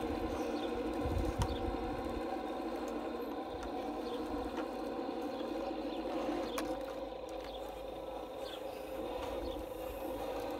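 Radio-controlled model Caterpillar D10T bulldozer running as it drives back and forth across the sand, a steady mechanical hum with faint ticks.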